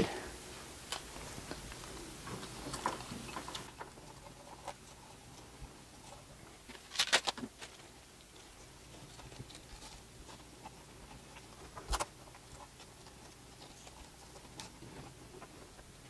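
Faint handling noise of cables being bundled with hook-and-loop ties: scattered small clicks and rustles, a short run of louder clicks about seven seconds in, and one sharp knock near twelve seconds.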